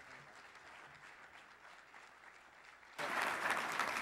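Audience applauding: faint and thin at first, then much louder applause cutting in abruptly about three seconds in.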